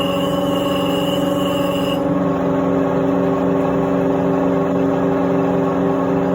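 Electric clipper-blade sharpening machine running, its motor and spinning disc giving a steady, even hum. A higher whine drops out about two seconds in while the hum carries on.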